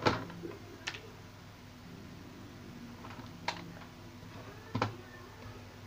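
Four short, sharp clicks and light knocks from hands handling tools and a TV circuit board on a workbench, spread across a few seconds, with a faint low hum between them.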